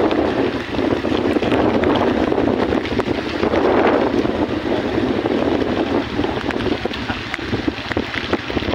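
Wind rushing over the phone's microphone on a moving motorbike on a rain-wet road: a loud, steady rush that swells about four seconds in.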